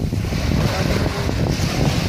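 Wind buffeting the microphone, with small sea waves washing onto the shore; the wash of the surf swells twice.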